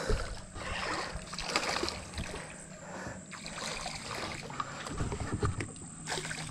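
Hooked snapper thrashing and splashing at the water's surface right beside a small boat, in irregular splashes that come louder about five seconds in, over a low steady hum.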